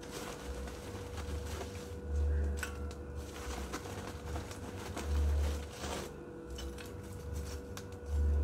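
Lumps of charcoal clinking and rattling as they tumble from a sack into a steel wheel-rim grill. Under it, a deep bass note from background music repeats about every three seconds.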